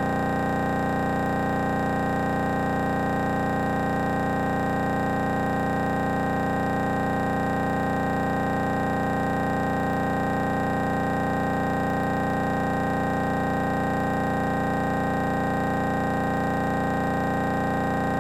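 The airplane's wing-mounted engine and propeller running at a steady drone while the plane rolls out and taxis, the pitch holding constant throughout.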